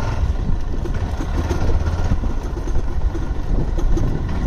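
Motorcycle engine running steadily as the bike is ridden slowly over a rough dirt track, with a few faint small clicks and rattles.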